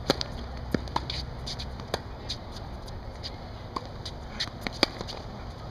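A tennis rally on a hard court: a sharp pop of the racket striking the ball on the serve just after the start, then further racket hits and ball bounces through the point, with another loud pop about a second before the end. Between the hits come quicker, fainter ticks and scuffs of shoes on the court.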